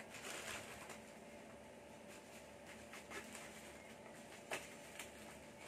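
Faint crinkling of a black plastic courier pouch being handled and cut open with scissors, with a few short sharp clicks, the loudest about four and a half seconds in.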